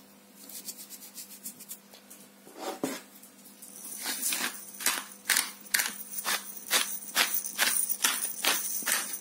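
Black pepper being dispensed over raw pork in a quick, even series of sharp clicks and rattles, about two to three a second, starting about four seconds in; a few fainter taps before that.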